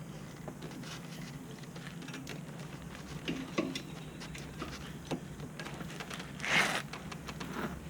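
Scattered faint clicks and light knocks of hydraulic quick-connect couplers being worked by hand, refusing to seat, which the owner puts down to pressure built up in the lines. A brief rustle about six and a half seconds in, over a low steady hum.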